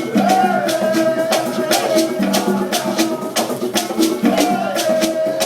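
Live African drum ensemble playing a steady beat of about four strokes a second, with rattles or shakers, while a voice sings long held notes that slide in pitch.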